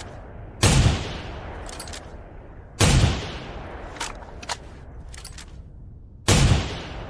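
KS V Bullpup Hunter rifle firing three single shots, each with an echoing tail, about two to three and a half seconds apart. Short faint clicks come between the shots.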